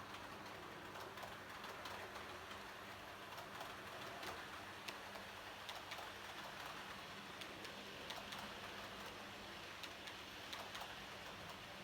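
H0-scale model train running on the layout track: a faint steady hum with many light, irregular clicks of the wheels over the rails and joints.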